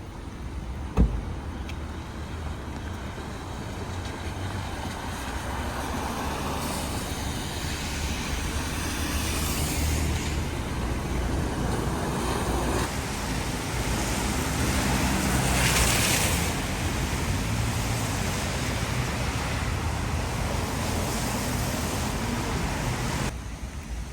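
Road traffic passing on a wet street: tyres hissing on the wet pavement over a low engine hum, swelling as vehicles go by. A single sharp knock sounds about a second in, and the traffic noise drops off suddenly near the end.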